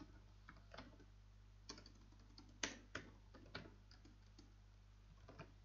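Faint computer-keyboard typing: about ten irregular, scattered keystrokes.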